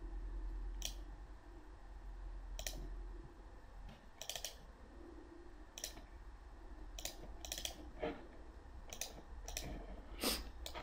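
Computer mouse clicking: about a dozen short, sharp clicks at irregular intervals, a few in quick pairs, as sketch lines are placed in CAD software, over a low steady hum.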